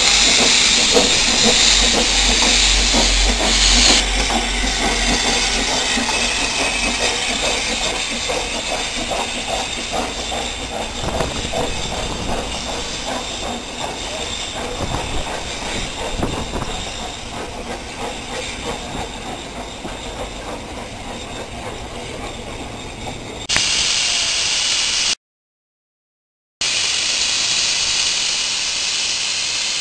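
Ffestiniog Railway Double Fairlie steam locomotive Earl of Merioneth pulling out with loud steam hissing, then its carriages rolling past with a rhythmic clatter that slowly fades. After a cut and a brief silent gap, the Double Fairlie Merddin Emrys gives off a steady hiss of steam.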